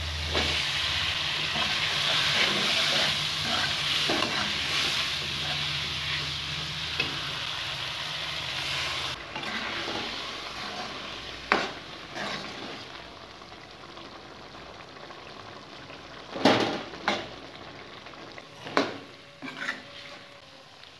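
Potato pieces frying in hot tomato masala in a metal pot, with a loud sizzle that drops away suddenly about nine seconds in. In the quieter second half, a metal spoon scrapes the pot and knocks sharply against it a few times as the potatoes are stirred.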